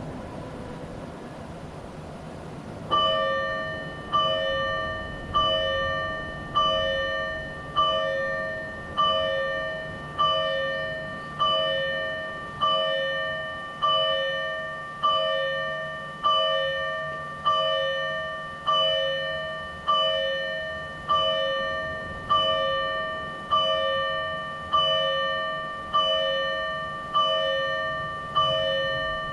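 Electronic fire-engine warning bell from a PATLITE TWS-5102V siren amplifier, struck at a slow, even tempo of about one ring every 1.2 seconds, each ring fading before the next. The bell starts about three seconds in, after a low hum.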